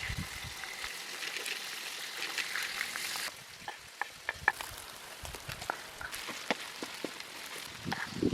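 Minced meat and chicken liver sizzling as they fry in a pan, a steady hiss with sharp pops and crackles. The hiss drops off suddenly about a third of the way in, leaving mostly scattered crackles.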